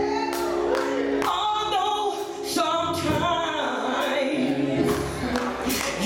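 Gospel choir singing behind a woman lead singer on a microphone, backed by sustained keyboard chords and sharp percussion hits.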